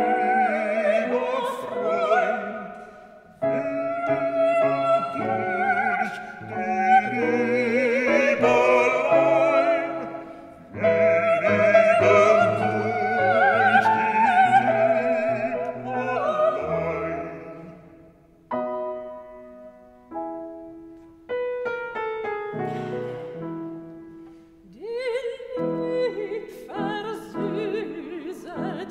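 Live classical singing with strong vibrato, accompanied by piano and a small instrumental ensemble. For a few seconds about two-thirds of the way through, the voice stops and only short accompaniment chords sound, before the singing resumes.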